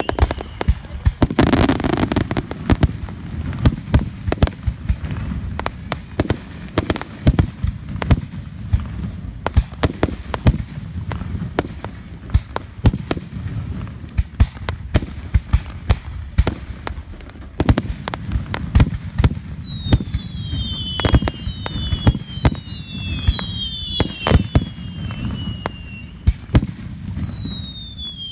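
Fireworks display: aerial shells bursting in quick succession, a steady stream of sharp bangs over a low rumble. In the last third, several falling whistles sound among the bangs.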